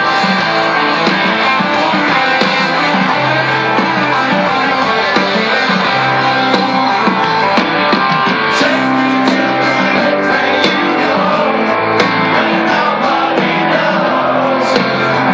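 Live rock band playing loudly, with guitars and a drum kit.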